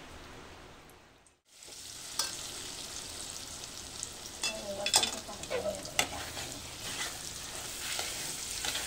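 Masala paste of ground coconut and gram flour sizzling in hot oil in an aluminium pan, with a steel spatula scraping and clinking against the pan as it is stirred, the paste being fried until it darkens. A steady hiss fades and breaks off about a second in, before the frying and stirring come in.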